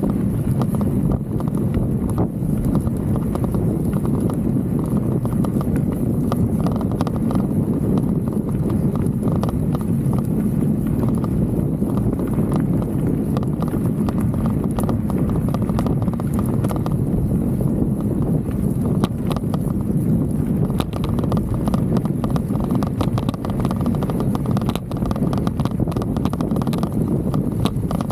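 Mountain bike rolling over a dirt road with a handlebar-mounted 360 camera rattling in a loose mount: a rapid, continuous clatter over the rumble of tyres and wind.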